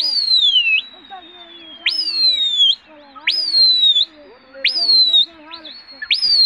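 Loud whistling: five sharp whistles about a second and a half apart, each shooting up in pitch and then sliding down, over a long held whistle that slowly falls.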